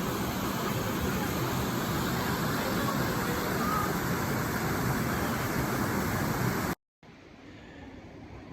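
Creek water rushing through a rock gorge into a pool, a steady loud rush. It cuts off abruptly near the end, and a much quieter steady hiss follows.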